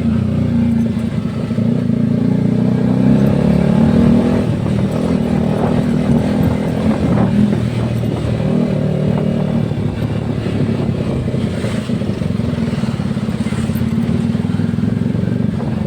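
Yamaha R15 V3's single-cylinder engine running under way, holding fairly steady revs with small rises and falls.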